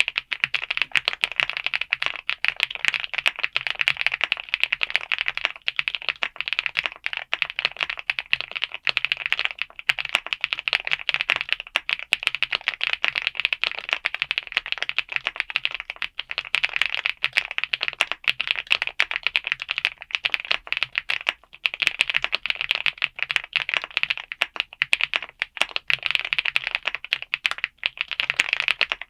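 Fast, continuous typing on a Kzzi K98 gasket-mount 98% mechanical keyboard with Jerzzi Wind Rain linear switches. The keystrokes come in a dense run of sharp clicks, with brief pauses twice.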